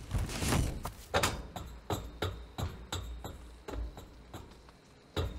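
A series of irregular sharp knocks and clatters that grow fainter, over a low rumble that dies away, with one louder knock near the end.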